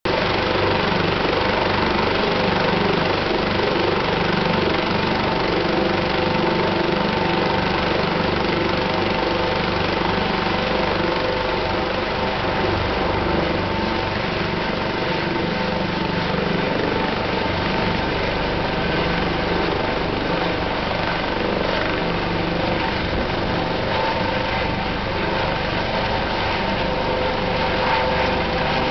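Twin-turbine Eurocopter AS365 Dauphin helicopter running on the deck with its rotors turning: a steady turbine whine over the rotor noise, growing a little louder near the end as it lifts off.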